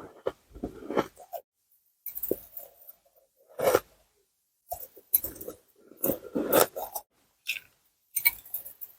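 Ice being bitten and crunched close to the microphone: sharp crunches come in short clusters, with silent gaps between them.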